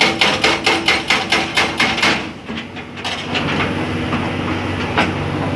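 Excavator-mounted hydraulic breaker hammer pounding rock in rapid, even blows, about eight a second, stopping a little after two seconds in. After that the excavator's diesel engine runs steadily, with a few single knocks.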